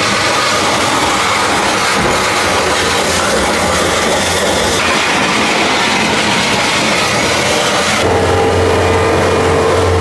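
John Deere compact track loader's diesel engine running while its steel front blade pushes and scrapes snow across the gravel driveway. The sound changes abruptly a few times, and about eight seconds in a steady engine hum comes up.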